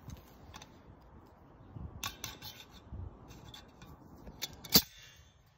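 Faint handling clicks of wire against the pliers and post, then one sharp snap near the end as Stanley pliers cut through 14-gauge trellis wire.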